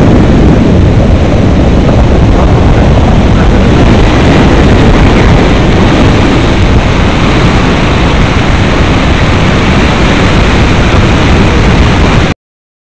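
Loud wind rushing over the microphone of a camera carried on a paraglider in flight, a dense, steady roar with no voices. It cuts out suddenly to silence near the end.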